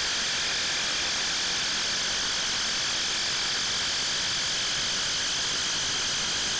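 Impact driver running steadily in reverse, backing a drill-tap bit out of a freshly tapped hole in steel: an even whir with no hammering impacts.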